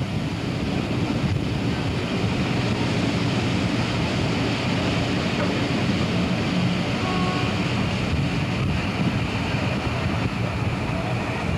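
A train running steadily, heard from on board: an even rumble with rushing wind noise on the microphone.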